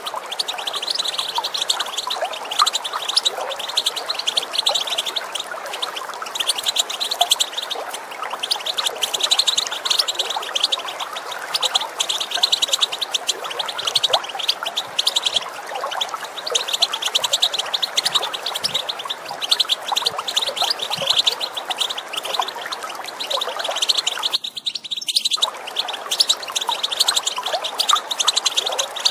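European goldfinch giving rapid twittering chatter calls in repeated bursts of a couple of seconds, over the steady rush of running water. Everything drops out briefly near the end.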